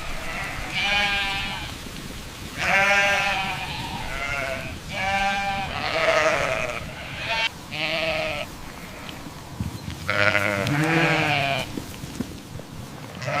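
Sheep bleating, about eight separate calls in a row, each lasting up to about a second, some higher-pitched and some lower, as from several animals.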